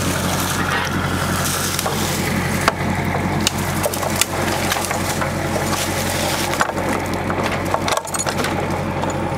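Dry leaves and twigs crunching and snapping underfoot and against branches, with many sharp cracks, over a vehicle engine idling steadily.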